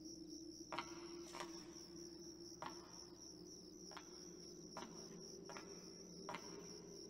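Faint night ambience: crickets chirping in a steady pulsing trill over a low drone, with about seven soft clicks scattered through it.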